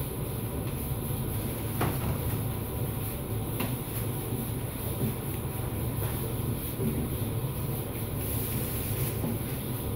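Steady low machine hum, with a few light knocks.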